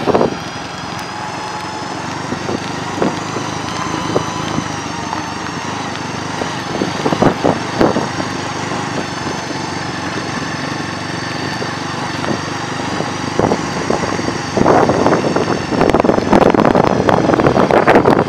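Motorcycle engine running as the bike rides over a rough gravel road, with several sharp knocks from bumps jolting the chest-mounted camera. From about three-quarters of the way through, louder wind buffeting on the microphone joins in.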